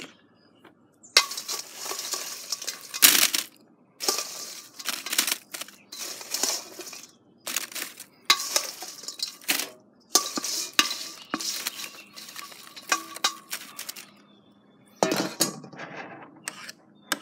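Metal tongs scraping and clinking against a stainless steel bowl while fried potato fries are lifted out into a paper-lined basket. This comes as a long series of irregular scrapes and clinks, with a faint metallic ring.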